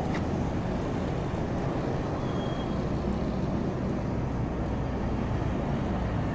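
Steady street traffic noise: a low rumble of small engines and tyres as a line of street go-karts drives past on the road.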